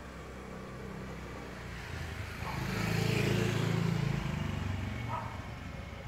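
A motor vehicle passing by: engine noise over a steady low hum swells to a peak about three seconds in, then fades away.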